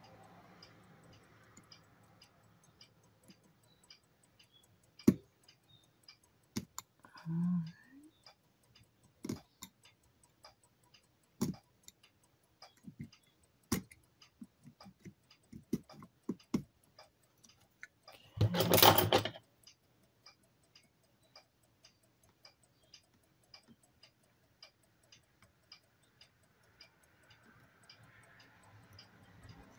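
Scattered light clicks and taps of a utility knife blade and hands working on the small plastic parts of a Polaroid SX-70 camera. About two-thirds of the way through there is one louder burst of noise lasting under a second.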